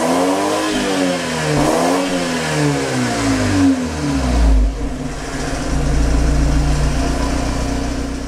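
Exhaust of a 2019 BMW 320i M Sport's turbocharged 2.0-litre four-cylinder, heard at the tailpipe in sport mode: three quick throttle blips in the first four seconds, each rising and falling, then settling back to a steady idle. The exhaust has no valve, so it sounds the same in every drive mode.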